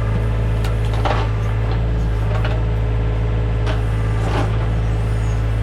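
Compact tractor's diesel engine running steadily under the backhoe, with a few brief scrapes or knocks from the digging work about one, two and a half, and four seconds in.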